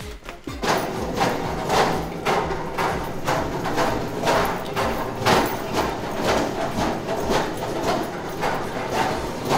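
Footsteps on a concrete floor, an even walking pace of about two steps a second.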